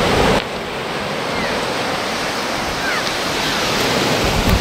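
Surf breaking and washing on a beach, with wind on the microphone. A few faint short high cries from a gull come through in the middle.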